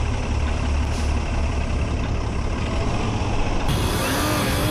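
A heavy vehicle's engine running close by with a steady low rumble, which thins out and changes about a second before the end.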